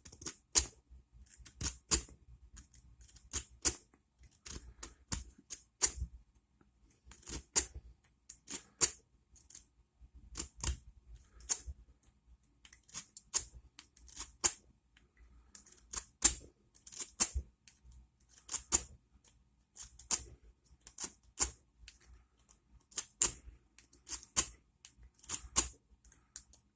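Metal W rake worked in and out of the keyway of an ASSA Ruko padlock, its pick catching the pin stacks in an uneven run of sharp clicks, one or two a second, often in small clusters.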